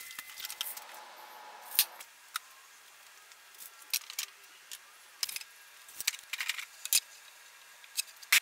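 Light clicks and knocks, about a dozen scattered irregularly, from tools and wooden boards being handled and set in place. A faint steady hum dies away in the first two seconds.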